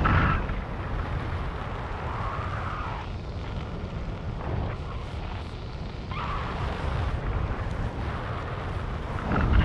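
Wind buffeting the microphone of a jumper's body-worn camera during a descent under a parachute canopy, a steady rush with louder gusts at the start and again near the end.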